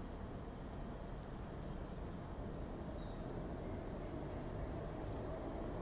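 Outdoor ambience: a steady low rumble, with faint bird chirps from about two seconds in.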